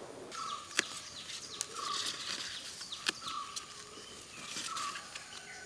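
Birds calling in short, repeated notes, with a few sharp snaps as taro leaf stems are picked by hand.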